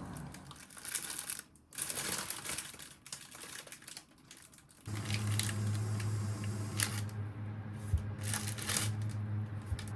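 Things being handled with clatter and rustle, then about five seconds in a tap is turned on and water runs steadily into a sink, with a low hum under it.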